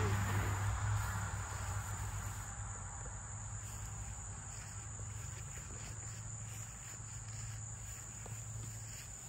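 Steady high-pitched chirring of insects, over a low steady hum that eases off over the first couple of seconds.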